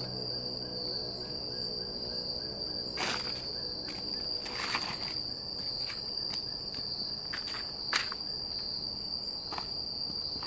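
A steady, high-pitched chorus of night insects in a forest, one continuous shrill tone. A few brief crackles break in, the loudest about eight seconds in.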